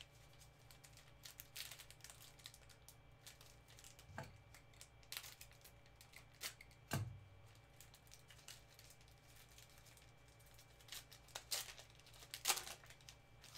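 A baseball card pack's plastic wrapper being torn open and crinkled by gloved hands: faint, scattered crackles with a few sharper rips, the loudest near the end. Two soft knocks come about four and seven seconds in.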